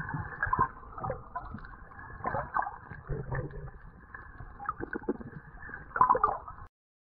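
Muffled underwater sound heard through a waterproof camera housing: water swishing with irregular knocks and bumps, the loudest about half a second in and again about six seconds in. It cuts off suddenly near the end.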